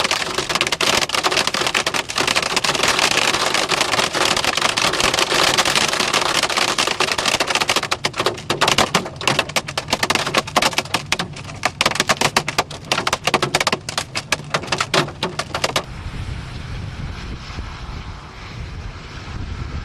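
Heavy rain pelting a vehicle as a dense hiss crowded with sharp individual hits. About sixteen seconds in it cuts abruptly to a quieter, steady rumble of wind on the microphone.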